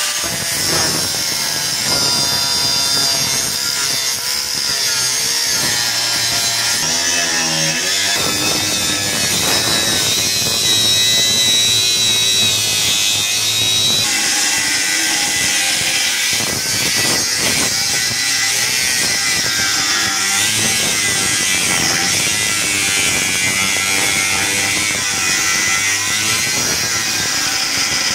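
Power tool cutting through metal to cut out a machete blank: a loud, steady, high-pitched whine that wavers in pitch.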